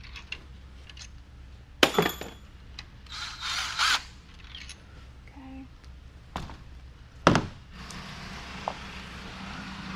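Metal tools and engine parts clanking while a connecting rod cap comes off a BMW S54 engine. A ringing metallic clank comes about two seconds in, then a scraping rattle, then two sharp knocks about six and seven seconds in, the second the loudest.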